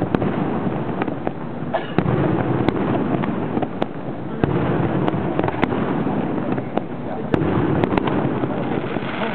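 Aerial firework shells bursting one after another, with many sharp bangs and pops in quick, irregular succession.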